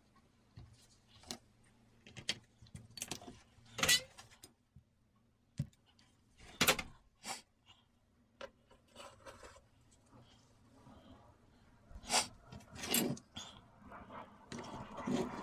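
Small tools and wood pieces handled on a workbench: scattered clicks, clinks and knocks as they are picked up and set down, with a continuous rubbing sound starting near the end.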